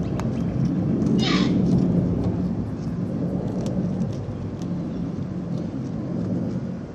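Steady low outdoor rumble, with one short harsh bird call falling in pitch about a second in.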